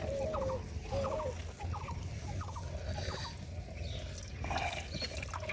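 An animal call repeated about twice a second, each a quick clatter of clicks followed by a short falling tone, fading in the second half. A steady low rumble runs beneath it.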